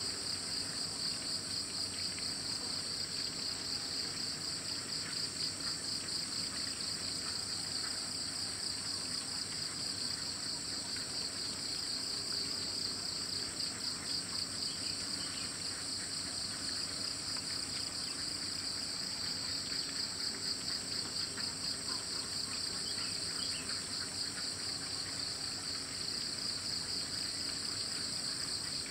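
Steady chorus of insects: a continuous high-pitched shrill with a very fast pulse.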